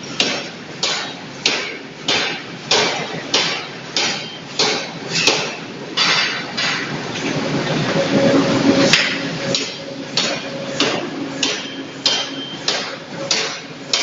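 Forging hammer repeatedly striking a red-hot steel blank, about one and a half to two blows a second. Around the middle the blows give way briefly to a steady rushing noise with a hum before the regular blows resume.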